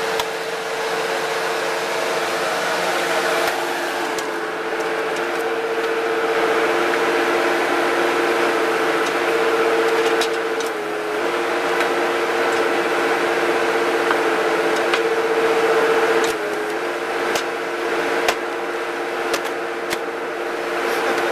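Small hydraulic log splitter running, its electric motor and pump giving a steady two-tone whine that sags in pitch briefly twice as the ram works under load. A few sharp cracks and clicks come in the second half while a log is pressed along the beam.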